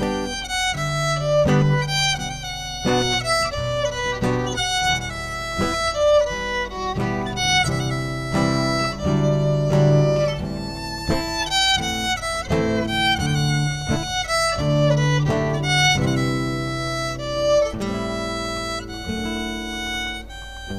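Violin playing a melody over plucked acoustic guitar chords, a live violin-and-guitar duo.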